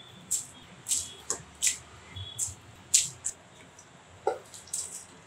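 Spiced water and oil boiling in an open pressure cooker, with bubbles popping and spattering in sharp, irregular pops about two a second while basmati rice is tipped in.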